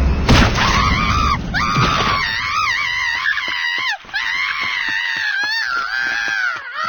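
A cartoon character's high-pitched screaming, wavering up and down and held with only brief breaks, after a loud rumbling crash in the first second or two.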